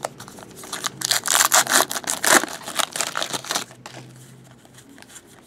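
Foil wrapper of a trading-card pack being torn open and crinkled by hand: a dense, crackly rustle for about three seconds from about a second in, then quieter handling of the cards.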